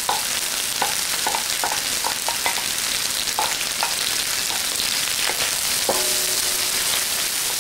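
Sauerkraut and onion sizzling in hot oil in an electric wok, with irregular clicks and scrapes of a utensil stirring them against the pan.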